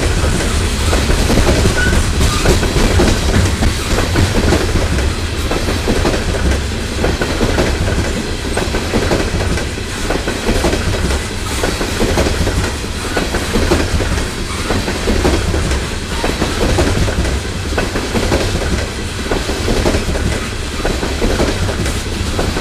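Coal hopper cars of a freight train rolling past: a steady, loud rumble of steel wheels on rail, with repeated clicking and clacking as the wheels cross rail joints.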